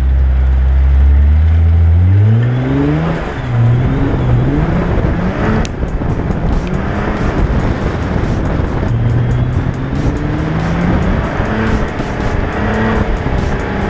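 Nissan GT-R's twin-turbo V6 idling low, then accelerating hard from about two seconds in, its revs climbing and dropping back several times as it changes up through the gears.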